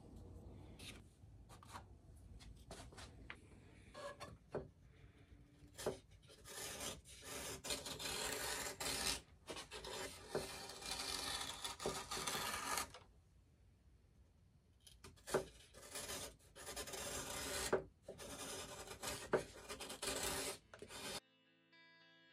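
Balsa wood being sanded and shaped by hand, with rough rasping strokes in two long spells and a short pause between them.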